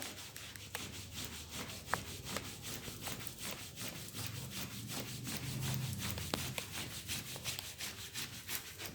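Hands rubbing briskly up and down a person's back along the spine, a faint run of quick, repeated friction strokes.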